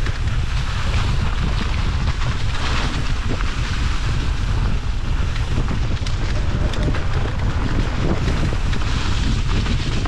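Steady wind rumble buffeting the camera microphone on a moving mountain bike, mixed with the noise of the bike rolling over a wet, muddy trail.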